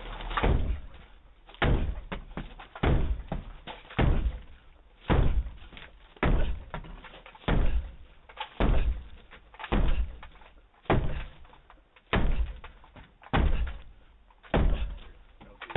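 Sledgehammer blows on a house door as police break it in. There are about thirteen heavy bangs, one every second and a bit, each dying away quickly, heard through a doorbell camera's microphone.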